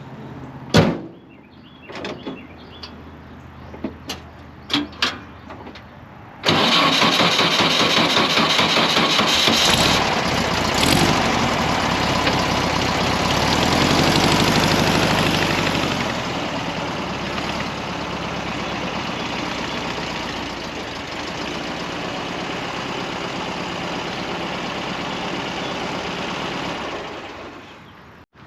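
A few clicks and knocks, then about six seconds in a 1964 VW Beetle's air-cooled flat-four engine starts suddenly. It runs loudest for the first ten seconds or so, then settles to a steadier, slightly quieter idle, and the sound drops away just before the end.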